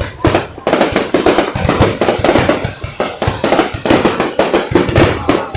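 Fireworks going off in rapid succession, loud bangs and crackling several times a second, with music playing underneath.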